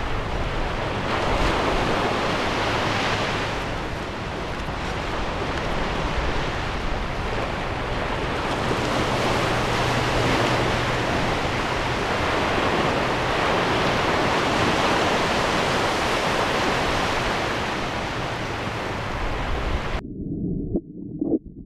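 Small sea waves sloshing around a camera held at the water's surface, mixed with wind noise on the microphone. About twenty seconds in, the camera goes under and the sound cuts to a muffled, low underwater rumble.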